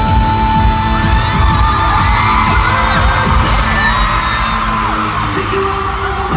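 Loud live pop music with a steady bass beat, and a crowd of fans screaming and cheering over it from about a second in, fading a little near the end.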